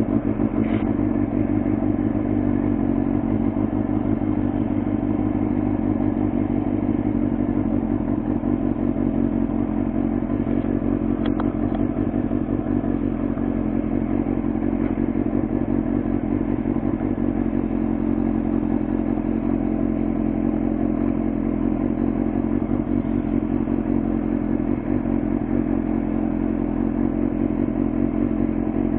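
Suzuki sport motorcycle's engine idling steadily.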